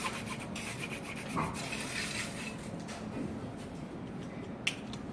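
Rapid rhythmic rasping, rubbing strokes, as in filing or sanding a pipe, fading about a second and a half in, with one sharp click near the end.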